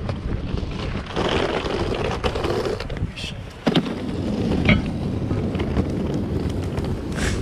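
Wind rumbling on the microphone of a handheld camera carried along a city street, with street noise and a couple of sharp knocks from handling near the middle.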